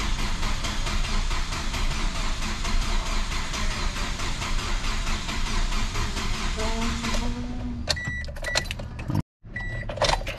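Toyota Corolla XRS's 2ZZ-GE four-cylinder being cranked over by the starter in a fast, even rhythm on its first start attempt after a cylinder-head replacement, not catching; the cranking stops about seven seconds in. A few short electronic beeps follow near the end.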